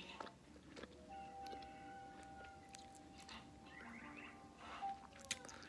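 Bubble gum being chewed, with soft wet mouth clicks and smacks, faint. A faint held tone runs underneath from about a second in until near the end.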